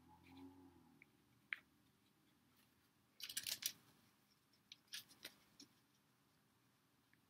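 Near silence broken by faint scratching and rustling of a pen writing on paper. There is a short scratchy burst about three seconds in and a few small ticks around five seconds.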